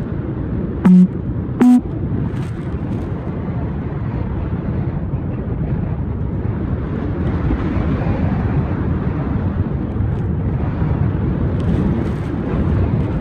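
Airflow rushing over the microphone in flight under a paraglider, a steady low rush. About a second in come two short, loud tones close together.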